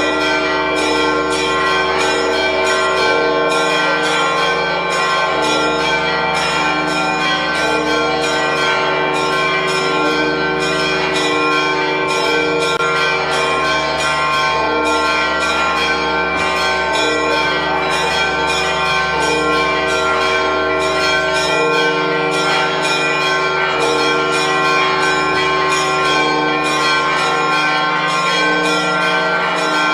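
Church bells pealing continuously, many bells struck in rapid overlapping strokes with their tones ringing on, rung to announce the appearance of the Holy Fire.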